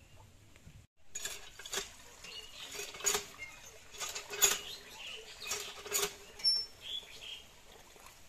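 A metal cooking pan scrubbed by hand with water, starting about a second in. It is irregular scraping and rubbing with a few sharper knocks that make the pan ring with a low tone.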